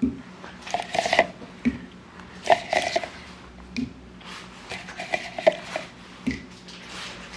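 Plastic decorative apples being lifted out of a wooden bowl and set down: a string of light, irregular knocks and rustling handling noises.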